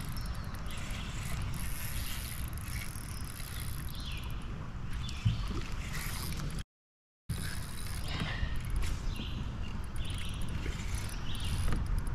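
Wind buffeting an action camera's microphone over water lapping around a kayak. The sound cuts out completely for about half a second midway.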